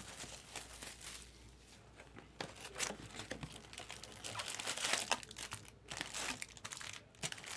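Plastic shrink-wrap crinkling as it is pulled off a sealed trading card box, then cardboard tearing and scraping as the box's top is pushed in and torn open, in irregular crackles and sharp rips.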